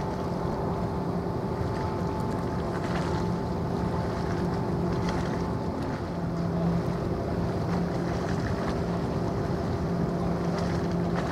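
Large passenger/ro-ro ferry's machinery droning steadily as the ship passes, a low hum holding a few steady tones, over wind noise on the microphone.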